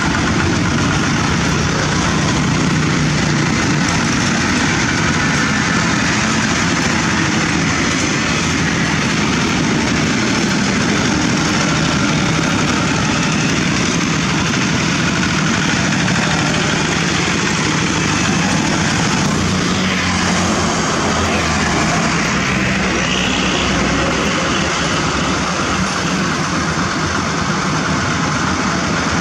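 Diesel engines of several two-wheel walking tractors running together in a convoy, a steady, loud mechanical din.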